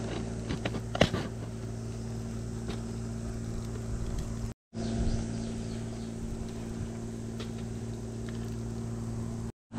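Several sharp metallic clicks and clanks, the loudest about a second in, as the lid of an aluminium mess tin is pressed shut and the tin is handled, with a few fainter knocks later. A steady low mechanical hum runs beneath, and the sound cuts out briefly twice.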